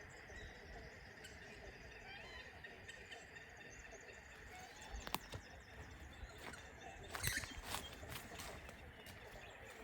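Faint outdoor ambience with birds chirping and calling over a steady high tone, and two brief sharp clicks about five and seven seconds in.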